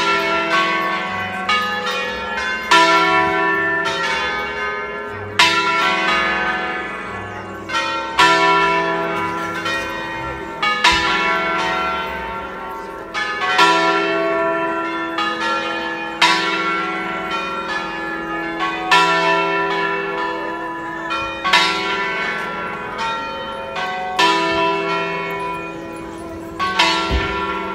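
A five-bell church ring cast by De Poli in 1949, tuned to a slightly sharp E, rung by bell-ringers in a concerto. The strokes follow one another steadily, a loud one about every two and a half to three seconds, and each bell rings on over the next.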